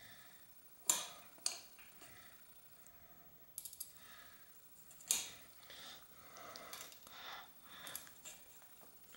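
Bicycle brake cable housing being pulled through the internal routing of a Vision basebar: a few sharp clicks and rattles, the loudest about a second in and about five seconds in, with soft scraping and rustling between.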